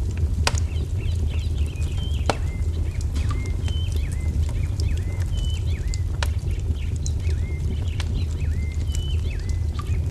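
Wood fire crackling, with sharp pops over a steady low rumble. A bird calls a short two-note phrase that drops in pitch, over and over.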